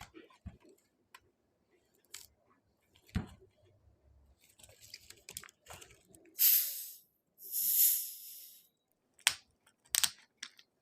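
Pepsi bottle being opened: small clicks and a knock of handling, then two sharp hisses of carbonation escaping as the cap is twisted, about six seconds in and again a second later, followed by a couple of clicks.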